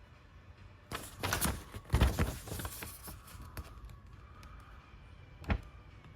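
Handling noises from unboxing a boxed action figure: a burst of rustling and clicks starting about a second in and lasting about two seconds, a few light ticks, then a single sharp knock near the end.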